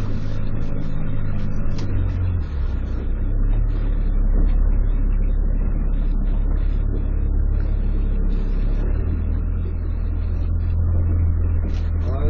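A small fishing boat's engine running with a steady low rumble that shifts in pitch about two seconds in and again near nine seconds.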